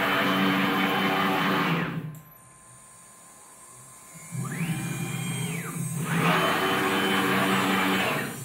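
Stepper-driven DIY CNC router moving its gantry. A high whine rises as the axes speed up, holds while they travel and falls as they stop. It stops about two seconds in, is quiet for about two seconds, then starts again with a short move and a longer one.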